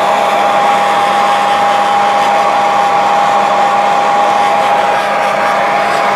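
Handheld hair dryer running steadily, drying wet watercolor paint between layers: a loud, even rush of air with a steady whine.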